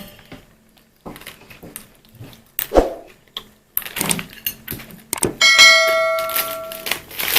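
Scattered light knocks and rustles of handling, with a sharp knock near the three-second mark. About five seconds in comes a single clear ringing ding that fades away over about a second and a half.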